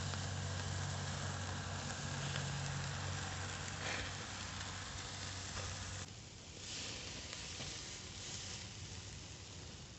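Marinated skirt steak sizzling on a charcoal grill grate, a steady crackling hiss. A low hum runs under it and stops about six seconds in.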